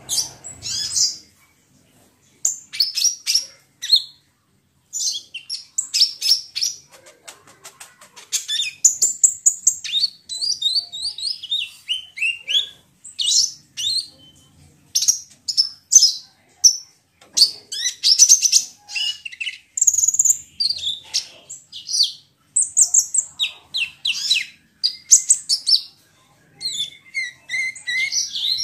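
Kolibri ninja sunbird singing: fast, high-pitched chirping and twittering phrases, broken by short pauses.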